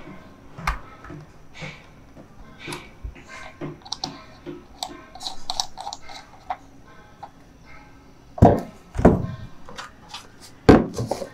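Drone accessories and their packaging being handled: scattered light clicks and rustles, then a few louder thumps about eight and a half seconds in and again near the end.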